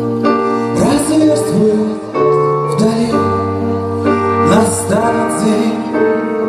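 Live band playing a slow ballad: sustained keyboard chords over held bass notes, with a melody line that slides between notes.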